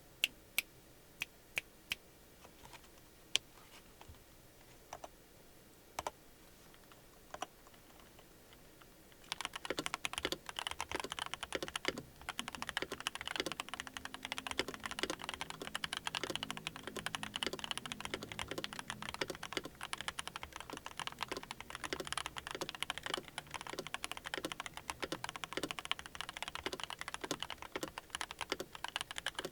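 Yunzii YZ75 Pro mechanical keyboard being typed on as a keycap sound test. For about nine seconds there are single keystrokes, roughly one a second, then fast continuous typing clatters steadily.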